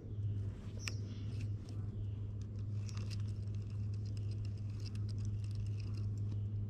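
Small boat's motor running with a steady low hum, with light scattered ticks and taps over it.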